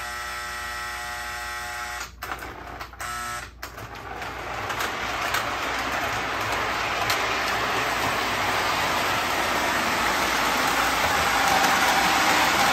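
Toy train horn buzzing in two blasts, the second shorter, then the steady rumble of an O gauge toy train running on three-rail track, growing louder as it comes on.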